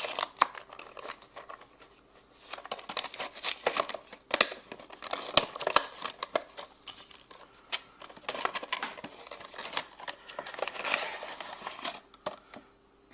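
Heroclix booster pack being torn open and its plastic packaging crinkled and handled, in irregular bursts of crackling with sharp clicks. It goes quieter near the end.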